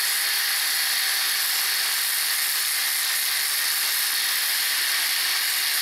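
A grinder cutting a notch into the old wheel bearing's inner race left stuck on the hub, a steady high hiss.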